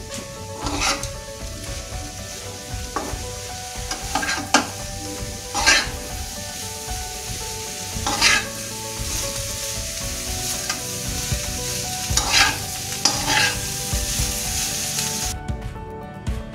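Chopped ash gourd sizzling in a hot pan while a spatula stirs it, with about eight separate scrapes of the spatula against the pan. The sizzle cuts off suddenly near the end.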